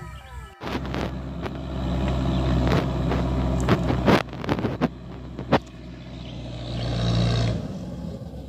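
A motor engine running steadily, growing louder and then stopping abruptly about seven and a half seconds in, with a few sharp clicks and knocks over it.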